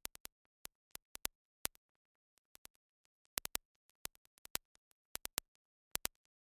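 Sparse, irregular sharp clicks and pops, a few a second, over otherwise dead silence.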